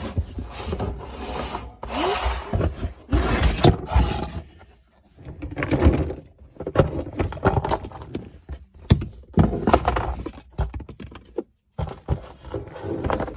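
Fidget toys being handled and packed into a container: rustling and many knocks and dull thunks as the toys go in and bump together, with a couple of short pauses.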